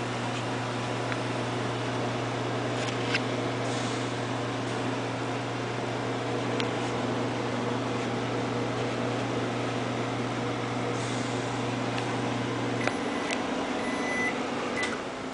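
Microwave oven running with a steady low hum and a few faint clicks. About 13 seconds in, the hum cuts off with a click, and a short high tone follows a second later.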